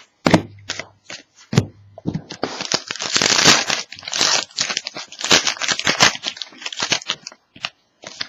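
A hockey card pack's wrapper being torn open and crinkled, a dense crackling rustle with sharp clicks, loudest in the middle, after a few handling knocks.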